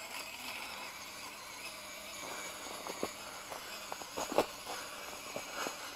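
Faint whirr of a small RC rock crawler's electric motor and gears as it drives over snow, with a few soft clicks and crunches, the loudest about four seconds in.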